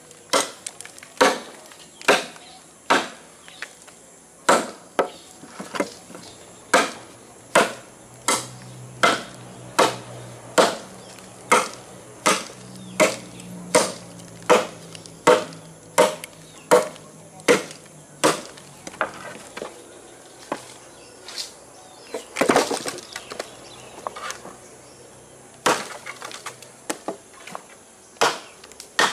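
A golok, a heavy Indonesian bone-chopping machete, chopping repeatedly into a wooden branch. The sharp chops come steadily, a little faster than one a second. They stop briefly about two-thirds of the way through, where there is one longer, noisier crunch, and then go on.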